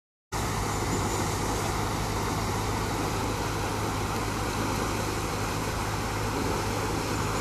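Steady rushing of floodwater from a burst water main, gushing and churning across the ground; the sound cuts in suddenly just after the start.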